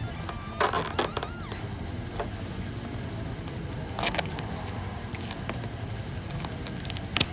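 Plastic zip ties being pulled tight, heard as short bursts of ratcheting clicks three times: about a second in, around four seconds, and near the end.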